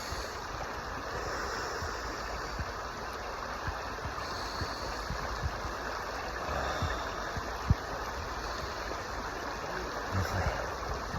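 Cold river running over stones: a steady, even rushing of water, with a few faint low knocks.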